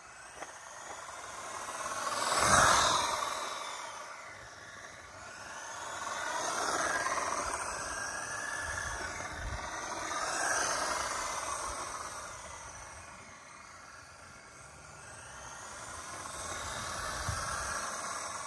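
A 1/16-scale UDI Breaker 1601 RC drift truck's electric motor whining as it drives on asphalt. The whine swells and sweeps up and down in pitch as the truck passes close by several times, loudest about two and a half seconds in.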